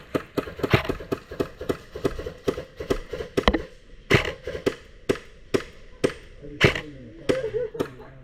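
Airsoft gun firing single shots, an irregular string of sharp cracks, several a second at first and more spaced out in the second half.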